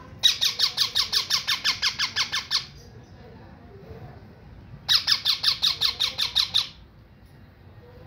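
Young green parakeets giving two bursts of rapid, rhythmic squawking calls, about eight a second, the second burst starting about five seconds in. These are the food-begging calls of hand-fed parakeet chicks.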